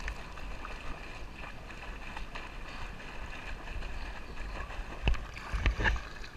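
River water sloshing and splashing right at a waterproof action camera held at the surface, with a few sharp splashes or knocks about five seconds in.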